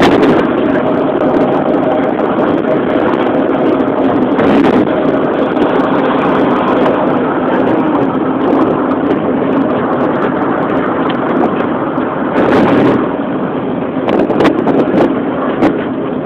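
Car driving, heard from inside the cabin: steady engine and road noise, with a few brief knocks.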